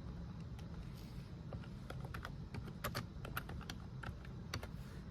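Typing on a computer keyboard: irregular key clicks entering a search query, with a quick flurry of keystrokes about three seconds in and another near the end.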